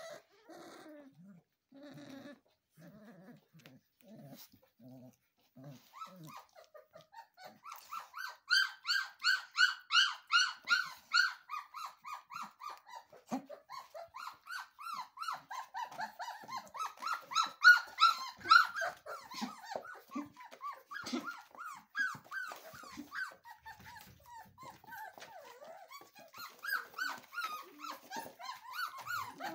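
Three-week-old puppies playing: a few short low growls in the first seconds, then from about a third of the way in a long run of rapid high-pitched yips and squeals, several a second, rising and falling in pitch.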